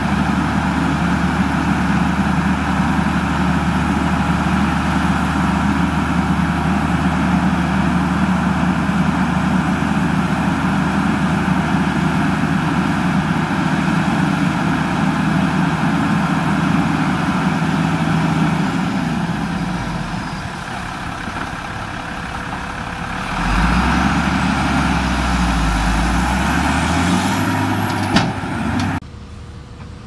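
Diesel engine of a SHANTUI DH17C2 hydrostatic bulldozer running steadily under load. About two-thirds through it eases off, then revs up again with a rising pitch. Near the end there is one sharp clank, and the sound drops off suddenly.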